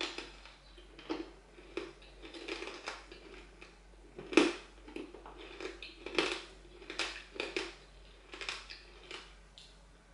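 Hard, crunchy pork crackles being chewed: irregular crackly crunches close to the mouth, the sharpest about halfway through.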